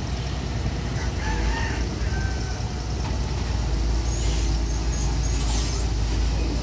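Floating CAT 320D long-arm excavator's diesel engine running steadily with a deep rumble. A brief higher hiss joins it about four seconds in.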